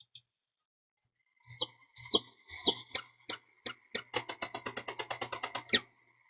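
Common nightingale singing: a few sharp clicks, then a high whistled note broken by loud chips, then a fast rattling trill of about a dozen notes a second, ending about six seconds in.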